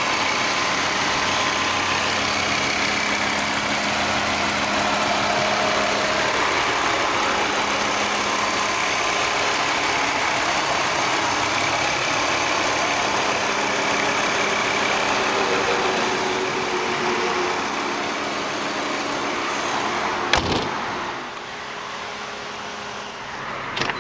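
Volvo S70's turbocharged 2.4-litre inline-five idling steadily, heard under the open hood. About twenty seconds in there is a sharp thump, after which the engine sounds quieter and more muffled. A click follows near the end as the door handle is pulled.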